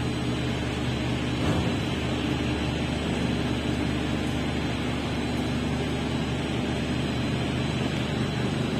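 Steady low mechanical hum of running machinery, with a brief knock about one and a half seconds in.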